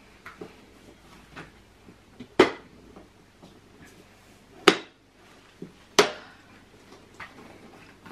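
Three sharp, loud plastic clunks, about two seconds apart, with a few lighter clicks in between, from a Cybex Cloud Z infant car seat being handled and pushed into position while fitting it to its base.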